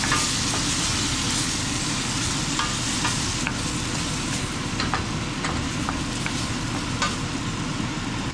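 Shrimp and diced Roma tomatoes sizzling steadily in butter in a stainless steel skillet, with a few light clicks as the food is stirred.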